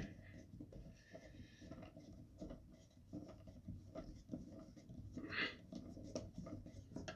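Faint handling noises: small clicks, taps and rubbing as parts and a screw are worked on the Umarex Gauntlet's plastic buttstock, with one brief scrape about five and a half seconds in.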